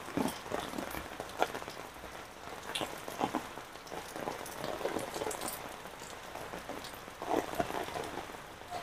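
Heavy rain falling on wet pavement and puddles: a steady wash of rain with irregular louder splashes of drops close by.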